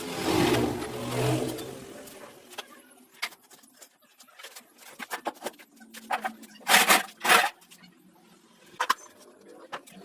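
Workshop handling noises: a louder rushing noise for the first two seconds, then scattered clicks and scrapes with two loud sharp knocks about seven seconds in, typical of tools and metal parts being handled.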